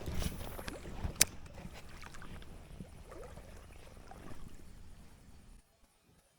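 Rumbling outdoor noise of moving water and air on the microphone, with one sharp click about a second in; the noise cuts off suddenly near the end.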